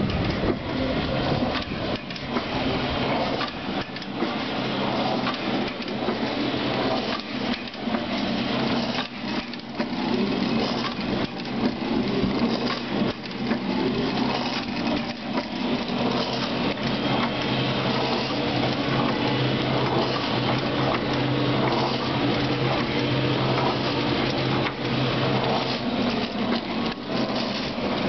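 AMF Scaleomatic S300 dough divider-rounder running: a steady electric motor hum with a constant low tone, under continual irregular mechanical clatter and knocking from the divider mechanism.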